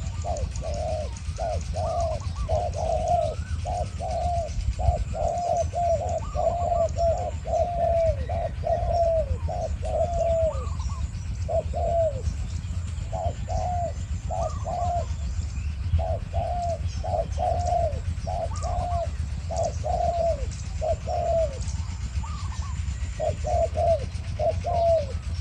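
Spotted doves cooing in long runs of short, low notes with brief pauses: a caged decoy dove and a wild dove calling against each other.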